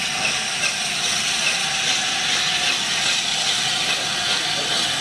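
Steady hiss of steam escaping from a standing steam locomotive, with no exhaust beat, growing a little louder toward the end.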